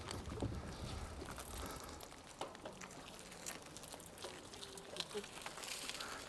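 Bicycle rolling over wooden footbridge boards and cobblestones: a low rumble for the first two seconds, then quieter scattered clicks and ticks.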